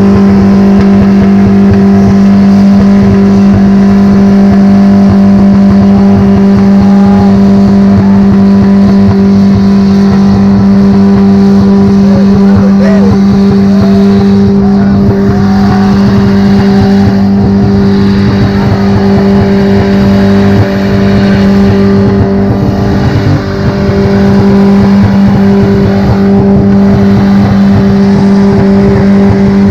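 A car engine held at steady high revs, one unchanging pitch for the whole stretch, with a rough rasp under it and a brief drop about two-thirds of the way through.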